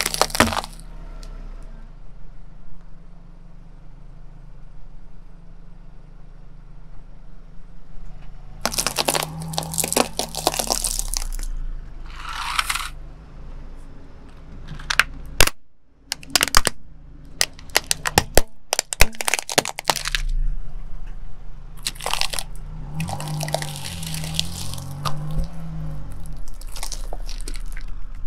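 Car tyre rolling over and crushing brittle things, painted walnut shells and a plastic toy car, in several separate bouts of sharp cracking and crunching. A low steady hum runs underneath.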